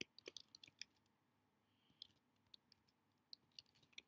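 Faint keystrokes on a computer keyboard while code is typed, in short irregular bursts: a quick run in the first second, a few about two seconds in, and another run near the end.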